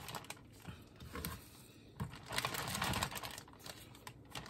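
Plastic zip-top bag crinkling and rustling as gloved hands work marinated steak strips into it, with small irregular clicks and a louder stretch of handling about two seconds in.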